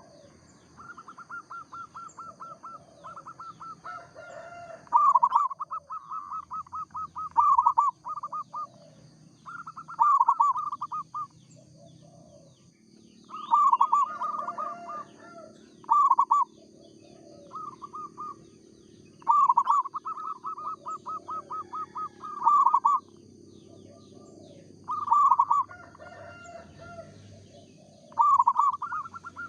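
Zebra dove (perkutut) cooing its song: phrase after phrase of rapid rippling coos, with short pauses between them.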